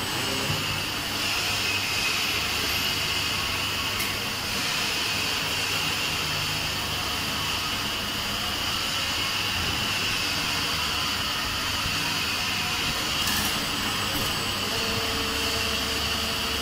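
Servo-driven hydraulic powder compacting press running through a pressing cycle: a steady whirring hiss with a low hum beneath, a faint click about 4 seconds in and another about 13 seconds in, and a steady tone joining near the end.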